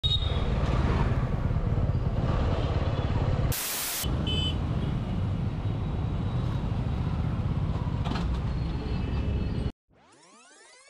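City traffic heard from a moving motorcycle: a steady low rumble of engines and road noise with a few short vehicle horn beeps. A brief hiss comes about three and a half seconds in. Near the end the traffic cuts off and a much quieter sweeping electronic effect of rising and falling tones begins.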